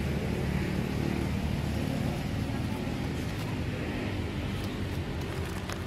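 A steady low background rumble, with a few faint clicks near the end.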